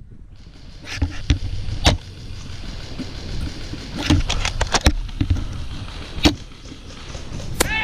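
Sharp snaps and clicks of airsoft gunfire and BB hits in woodland: single shots about a second and two seconds in, a quick run of five or six snaps about four seconds in, and a loud single snap after six seconds. A low rumble runs underneath.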